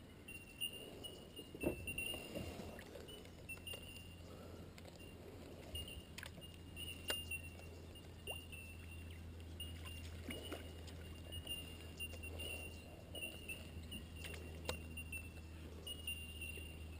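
Kayak paddle working in the water, with scattered light knocks and drips against the hull. Behind it an insect chirp repeats throughout.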